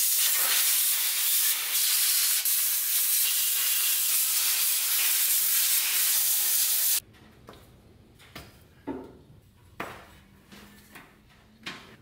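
Compressed-air blow gun on a shop air hose blasting a steady hiss of air over the engine for about seven seconds, then cutting off abruptly. After it come a few light knocks and handling noises.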